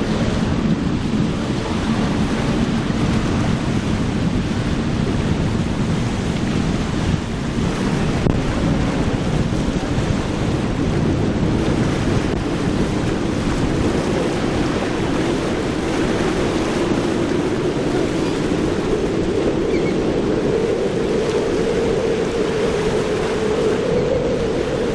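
Steady rush of wind on the microphone and surf. Through the second half, a speeding boat's outboard engine drone grows louder and slowly rises in pitch as it runs past through the waves.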